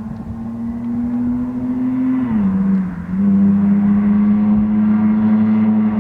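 Car engine drone at steady revs, a strong low hum with overtones; about two seconds in the pitch dips briefly, then it holds steady again and louder.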